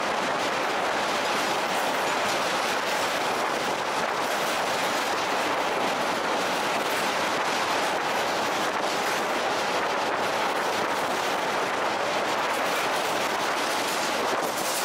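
Steady rolling noise of a moving 12 series passenger coach, heard from inside, with the light clicking of its wheels over the rail joints.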